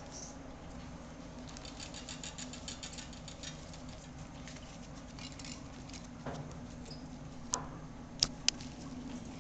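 Westie puppies scrabbling on newspaper: light rapid ticking and rustling from paws and play, with three sharp clicks near the end as they knock and bite a plastic toy truck.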